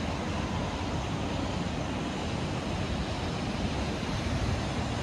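Steady rush of sea surf and wind, even and unbroken, with no engine running.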